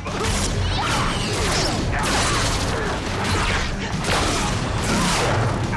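Dense run of staged-fight sound effects: rapid hits and crashes, with a loud sparking impact about four seconds in.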